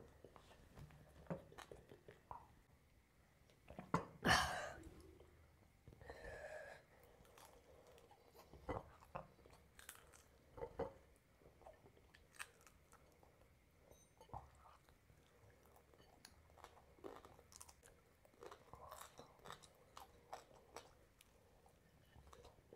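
Close-miked eating: a person chewing and crunching food, with irregular wet mouth clicks. The loudest crunch comes about four seconds in.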